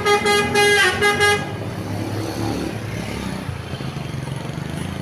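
Basuri V3 'telolet' multi-tone bus horn playing a quick tune of stepping notes, which stops about a second and a half in. A steady low vehicle engine rumble follows.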